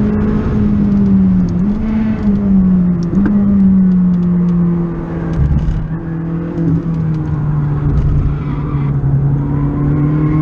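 McLaren 600LT's twin-turbo V8 heard from inside the cabin, running at a steady, fairly loud note that sags slowly in pitch, with a brief rise in revs about two seconds in.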